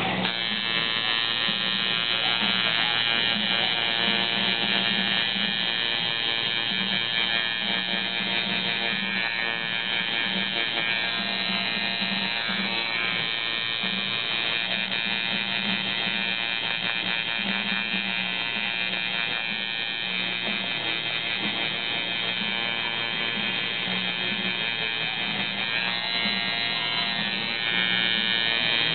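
Electric tattoo machine buzzing steadily while its needle shades black ink into skin.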